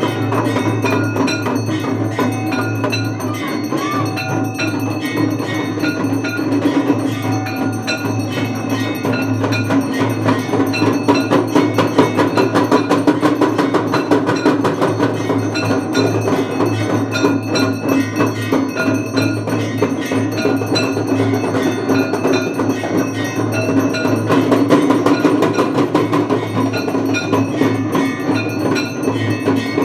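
Hindu aarti bells and percussion, ringing continuously with rapid, dense clanging strokes over a steady low hum.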